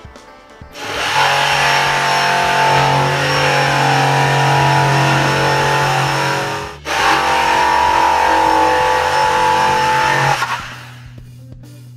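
Electric jigsaw cutting through a sheet of board. It starts about a second in and runs with a steady whine, stops for a moment about seven seconds in, then cuts again for about three more seconds before stopping.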